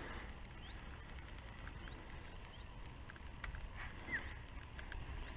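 Faint rapid light ticking with a few short bird chirps, and one clear falling bird whistle about four seconds in.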